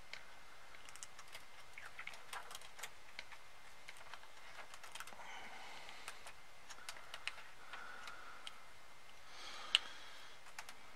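Faint small clicks and light rustling of a flat ribbon cable being worked by hand into its connector on the LCD panel's board, with one sharper click a little before the end.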